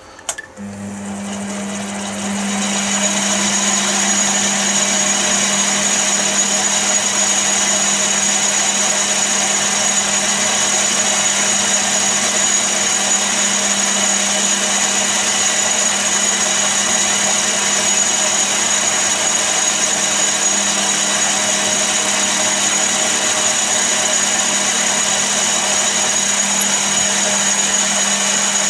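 Chester DB10 mini lathe switched on with a click, the motor and spindle speeding up over the first couple of seconds, then running steadily with a low hum and a high whine.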